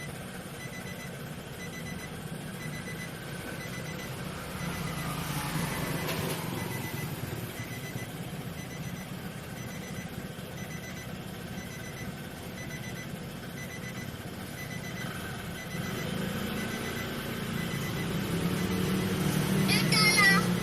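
Car cabin with the engine idling and an even ticking about twice a second, typical of a turn-signal relay. Just before the end, a burst of a child's recorded voice, played by the car's custom horn speaker, begins loudly.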